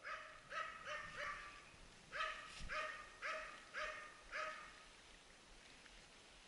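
A hunting dog baying at wild boar it is holding at bay, faint: a run of short barks, four in the first second and a half, then five more about half a second apart, stopping about five seconds in.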